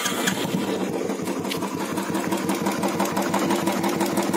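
Royal Enfield single-cylinder, air-cooled carburettor engine idling with an even, steady beat while the carburettor's idle-speed screw is set so that the engine will not stall at idle.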